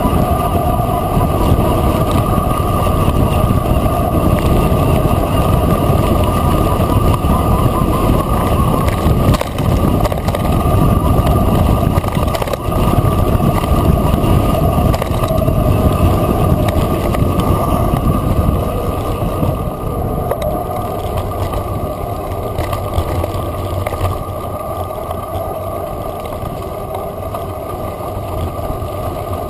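A mountain bike running fast downhill on a dirt track: wind buffeting the mounted camera's microphone and tyres rumbling over the ground, with a few knocks from bumps. It eases off somewhat about two-thirds of the way through.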